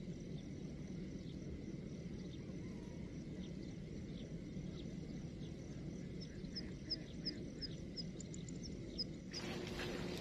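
Outdoor field ambience: a steady low rumble, with a quick run of short high chirps about three a second partway through. Near the end a rough rustling, crackling noise starts up and continues.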